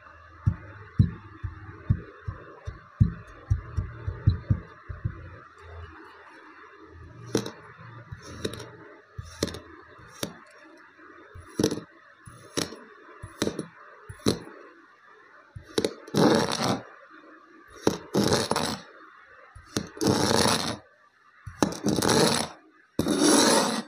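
Kinetic sand being pressed flat with a stamp, a quick run of dull thuds. Then a kitchen knife cuts through the sand with sharp clicks about once a second. Near the end come several longer scrapes as the blade sweeps across the sand and table.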